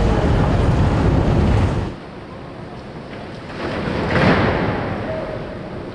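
Tunnel boring machine cutterhead grinding through the rock wall with a low rumble. It drops off suddenly about two seconds in, then a rush of rock and debris breaking away swells around four seconds in and fades.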